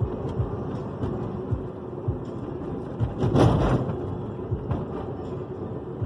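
Road noise inside a moving car's cabin: a steady low rumble with several short low thumps and a louder rushing swell about three and a half seconds in.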